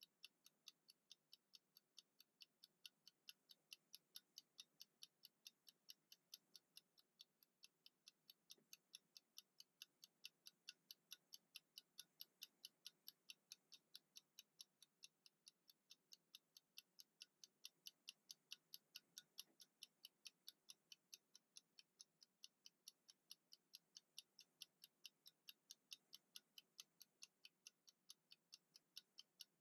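Wind-up mechanical kitchen timer ticking as it counts down: faint, sharp, even clockwork ticks, about three to four a second.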